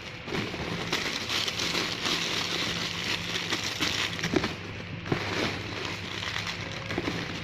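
Plastic squishy packaging crinkling and crackling as it is handled, with a brief lull about five seconds in.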